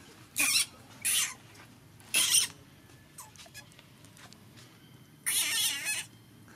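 Young long-tailed macaque screaming: three short, high-pitched screams in quick succession, then one longer, harsher scream about five seconds in. These are fear screams, the monkey afraid of a stranger.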